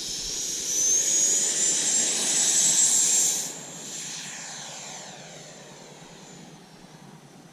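Freewing F-16 V2 RC jet's 90mm electric ducted fan at high throttle: a high whine rising in pitch, loudest for about two seconds, then dropping off sharply about three and a half seconds in and fading away.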